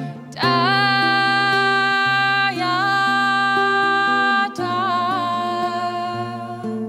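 A woman singing long held, wordless-sounding notes over a low sustained instrumental accompaniment. The first two notes are loud, each sliding up into pitch. A softer note with a wavering vibrato follows about four and a half seconds in.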